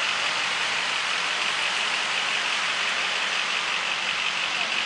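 Heavy tropical rain pouring down in a steady downpour.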